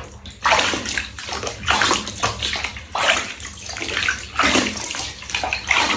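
Bath water splashing and running over a cat being washed, coming in uneven surges about once a second.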